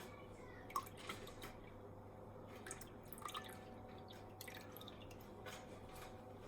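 Faint drips of lemon juice falling into a cup of tea as a lemon is squeezed, a few small scattered drops.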